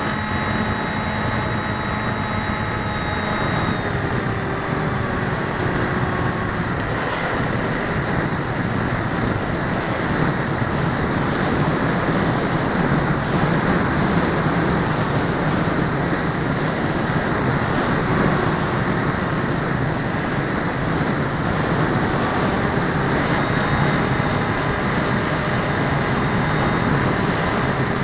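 Onboard recording of an RC aircraft's motor and propeller whine under heavy wind rush, the whine's pitch shifting a few times as the throttle changes.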